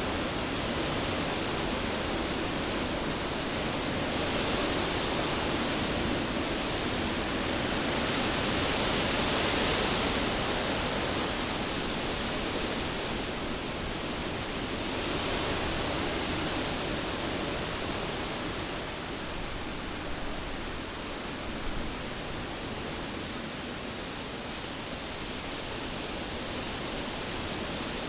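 Cyclone wind blowing, a steady rushing that swells in gusts every five or six seconds, with a couple of faint knocks about two-thirds of the way in.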